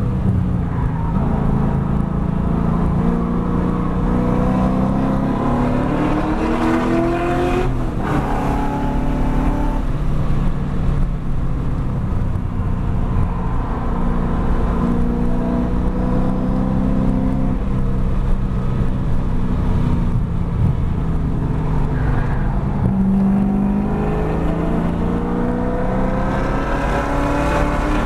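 Chevrolet Camaro 1LE's 6.2-litre V8 running hard on track, heard from the car: the engine note climbs, drops sharply about eight seconds in, holds steadier for a long stretch, then climbs again near the end as the car accelerates.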